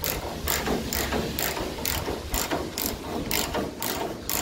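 Hand socket ratchet clicking in quick, even back-strokes, about three a second, as a bolt on a pickup's bed rail is loosened.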